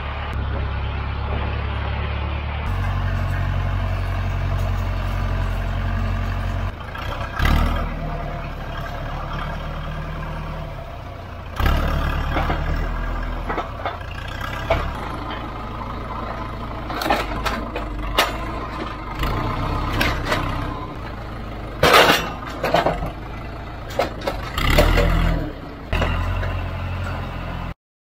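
Tractor engine running steadily, with a string of sharp knocks and clanks through the second half. The sound cuts off suddenly just before the end.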